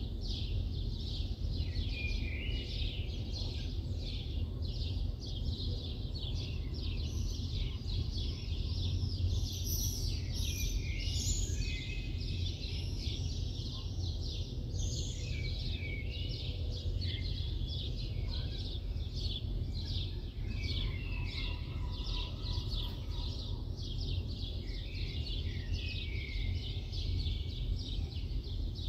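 A dense chorus of small birds chirping and twittering without a break, over the steady low rumble of the city.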